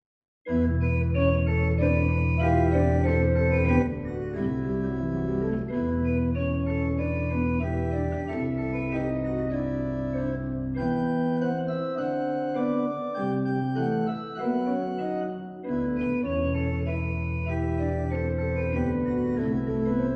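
Church organ playing music that starts abruptly about half a second in: full sustained chords over held low bass notes, with the chords changing every second or two.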